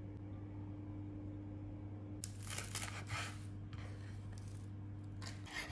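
A steady low hum, then from about two seconds in fresh flat-leaf parsley rustling and tearing in several bursts as its leaves are pulled off the stems by hand.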